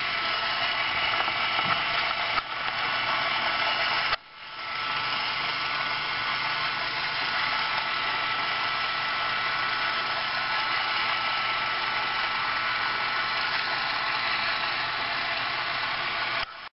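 M9-7500 orbital weld head's drive motor jogging the rotor round, its roller chain running over the sprockets with a steady mechanical whir. The whir stops for a moment about four seconds in, then starts again. This is the chain-alignment check that the rotor enters and leaves the chain smoothly.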